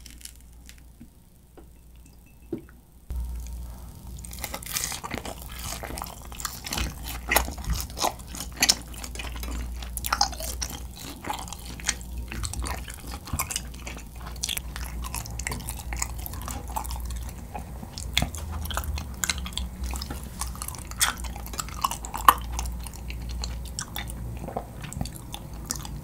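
Close-miked chewing of a large mouthful of grilled kirimochi (Japanese rice cake) dipped in cake syrup, with many small mouth clicks and smacks. It starts about three seconds in, after a few faint taps of chopsticks in a small dish.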